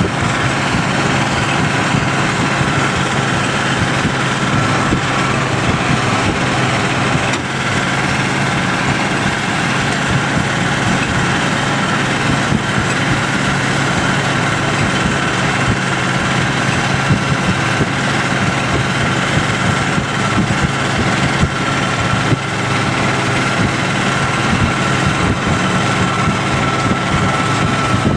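John Deere 7810 tractor's six-cylinder diesel running steadily as it tows a Strautmann Vitesse silage wagon through the grass, with a thin steady high whine over the engine noise.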